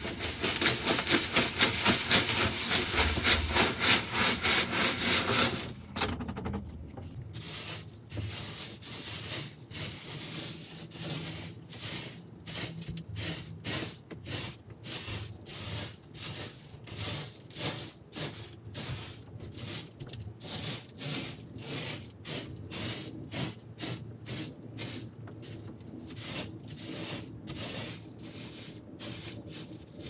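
Vacuum cleaner running with a loud, steady rush of suction for about six seconds, then pushed back and forth over the floor in short strokes, a rubbing rush of air about once or twice a second.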